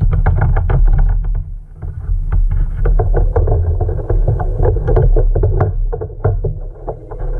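Irregular knocks and thumps in a fishing kayak, several a second, over a steady low rumble.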